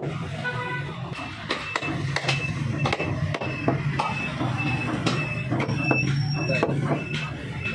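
Heavy butcher's cleaver chopping buffalo meat on a wooden log chopping block: sharp knocks about twice a second. Behind them run a steady low hum and a short high beep repeating about twice a second.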